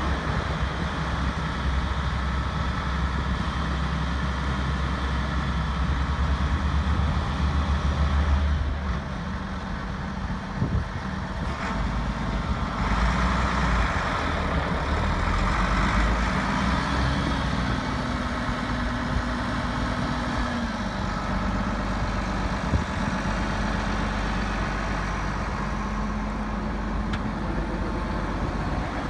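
International 5488 tractor's six-cylinder diesel engine running steadily as the tractor moves about. The engine note shifts about a third of the way in and again later on.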